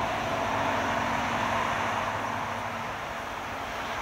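Airbus A380-861 on short final with its four Engine Alliance GP7200 turbofans at approach power, making a steady rushing jet noise. A low steady hum under it fades out about three seconds in.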